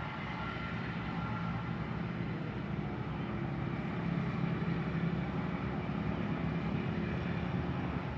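Mini CNC wood engraving machine running, with a steady motor hum and faint whine.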